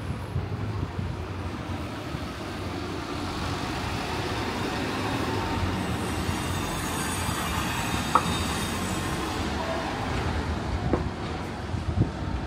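A large vehicle passing, its steady noise growing louder through the middle and fading near the end, with a faint high-pitched whine over it while it is loudest and a single sharp click about eight seconds in.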